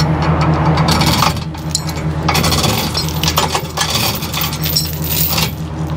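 Heavy steel tow chain clinking and rattling in irregular bursts as its links are pulled around an axle and looped around themselves, over a steady low hum.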